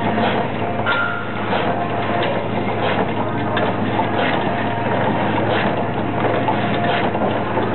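Spokes being laced into a bicycle wheel at a wheel-lacing machine, over a steady low machine hum, with short clicks and clinks coming about every two-thirds of a second.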